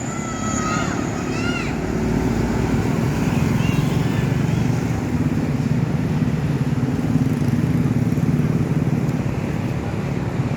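A bus engine running with a steady, deep rumble as the bus drives by.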